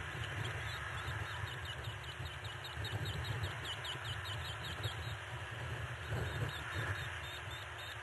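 A bird giving a rapid series of short, high chirps from about two and a half seconds in, with a few more near the end, over a steady low background rumble.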